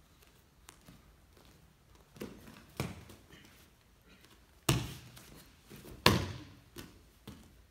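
Bare feet and bodies thudding on foam martial-arts mats: a few light stamps and slaps, then two loud thuds about five and six seconds in as the attacker is pulled down onto the mat.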